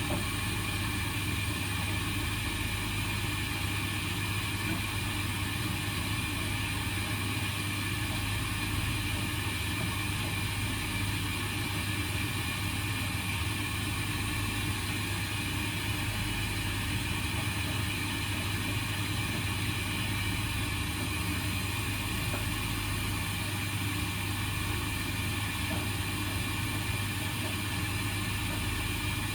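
Indesit washing machine running through the cool-down stage of its baby cycle after the main wash: a steady, unchanging hum with a constant hiss above it.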